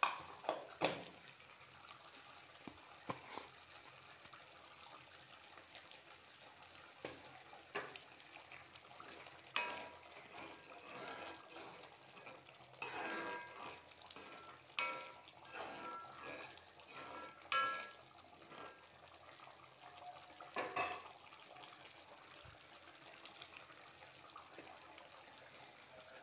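Faint bubbling of a thick tamarind and jaggery sauce simmering down in a steel pan, with scattered knocks and scrapes of a spoon against the pan. The sauce is reducing toward a thick consistency.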